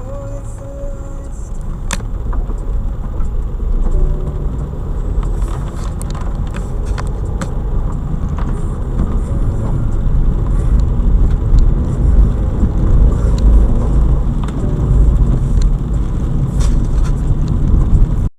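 Motor vehicle rumble, steady and low, with scattered clicks and knocks on top.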